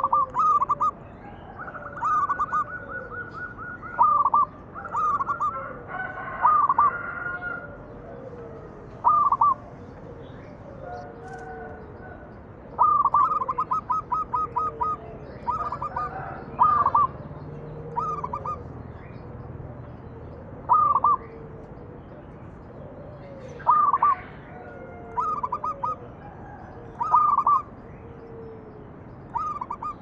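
Zebra dove (perkutut) in full song (manggung): loud, short, ringing coos in clusters every second or two, twice running into a quick rolling trill. Fainter, lower sliding coo notes sound underneath.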